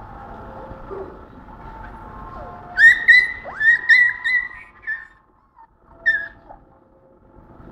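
Dog whining and yelping in rough play: a quick run of high-pitched whines starting about three seconds in, with one more short yelp near the end.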